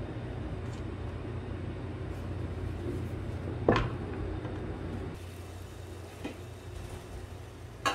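A steady low hum of kitchen cooking noise, with a single sharp clink of a utensil about halfway through and a couple of small clicks at the very end.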